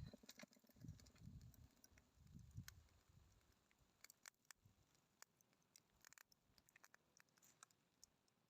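Near silence with faint scattered clicks, and a few soft low thumps in the first three seconds.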